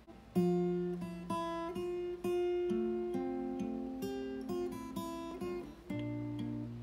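Acoustic guitar played fingerstyle: a slow melody of single plucked notes over bass notes, each note ringing on into the next, starting about a third of a second in.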